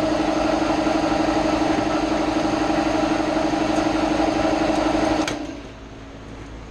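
Kobalt air compressor running steadily as it pumps up its tank, then shutting off suddenly about five seconds in as the pressure switch cuts out at full tank pressure, about 120 psi.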